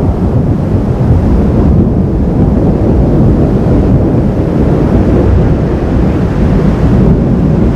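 Thunderstorm noise: a loud, steady, low rumble with no single crack standing out.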